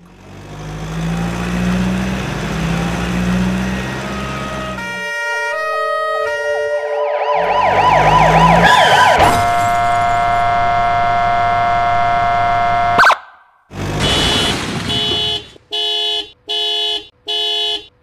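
A sequence of vehicle sound effects: an engine running for about five seconds, a short warbling siren, a long steady horn blast that cuts off abruptly about thirteen seconds in, then a rapid string of short horn honks near the end.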